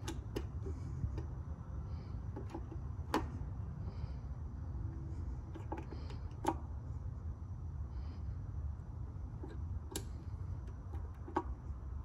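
Half a dozen light, sharp clicks and taps spread out, from multimeter test probes being handled and pressed into an outlet's contacts, over a steady low background hum.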